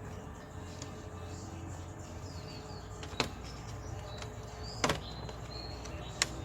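Sharp clicks and knocks of car door parts being handled and fitted back together, three of them standing out over a steady low hum.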